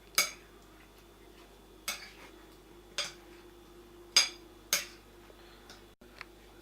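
A spoon clinking against a bowl while the fruit salad and yogurt dressing are stirred together: about six sharp, ringing clinks at uneven intervals, roughly a second apart.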